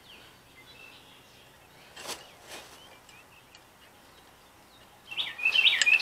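A songbird singing a quick run of chirping notes, loud, starting about five seconds in. Before that only faint outdoor background, with two soft knocks around two seconds in.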